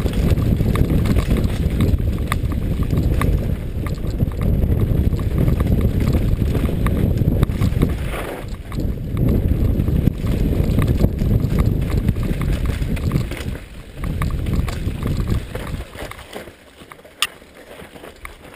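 Mountain bike descending a rough rocky trail: a steady rumble of wind and ground noise with constant rattling and knocking from the bike over rocks and roots. It drops away sharply near the end as the bike slows, leaving a few sharp clicks.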